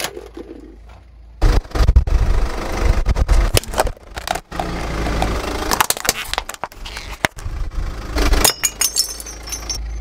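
Car tyre rolling over and crushing small brittle objects: a dense run of cracking and crunching starts about a second and a half in, then clinking and rattling near the end.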